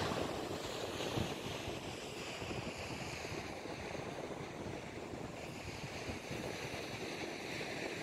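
Steady seaside wind and surf noise, with wind buffeting the microphone.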